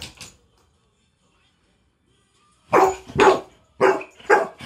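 Young Bernese Mountain Dog play-barking in excitement. A short bark trails off at the start, then after about two seconds of quiet come two loud barks and two softer ones.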